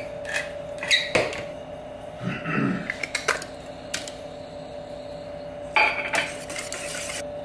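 Scattered clinks and taps of a metal can and utensils against a stainless steel mixing bowl as canned green chilies are tipped in, then a wire whisk beating the egg mixture against the bowl's sides for about a second near the end.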